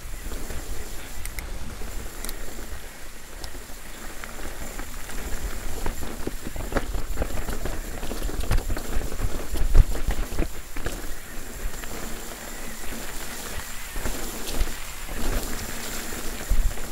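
Steel hardtail mountain bike descending a rough, rocky, leaf-covered trail: tyres rolling over dirt, rock and wet leaves, with many irregular knocks and rattles from the bike over the rough ground, loudest about ten seconds in, over a steady hiss.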